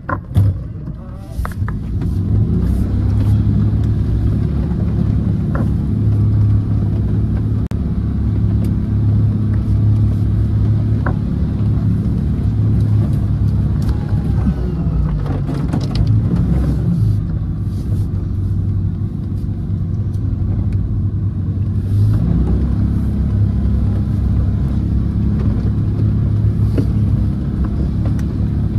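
4x4 SUV engine running steadily under load while driving through deep mud, heard from inside the cabin, with now and then a short knock of mud thrown against the windscreen and body.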